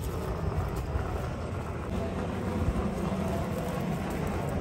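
Steady background din of a crowded market hall: indistinct voices over a low, continuous rumble.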